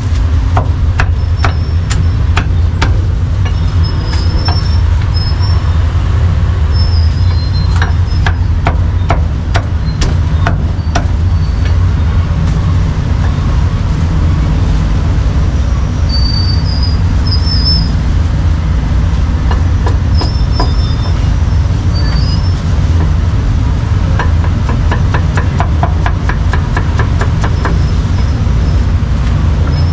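Cleaver chopping roast duck on a thick wooden chopping block: scattered sharp knocks, then a quick run of chops, about five or six a second, near the end. Under it, a steady loud rumble of passing street traffic.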